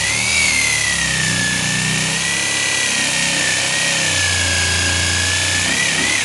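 Corded jigsaw running steadily as it rips lengthwise along a board, its motor whine wavering slightly in pitch as the blade meets the wood's resistance.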